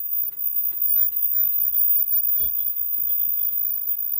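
Automatic disposable face-mask making machine running: a rapid, irregular clatter of its moving parts over a steady high-pitched whine, with a heavier knock about two and a half seconds in.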